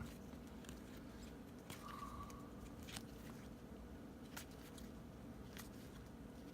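Faint, scattered light ticks of baseball trading cards being handled and flipped through, over a low steady room hum.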